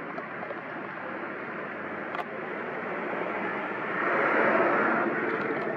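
Road traffic noise: a steady vehicle hum that swells about four seconds in, as a vehicle passes close by, then eases slightly.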